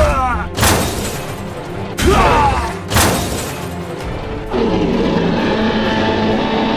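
Three heavy booming hits about a second apart, with falling pitched sweeps, over music. From about four and a half seconds in, held steady music tones.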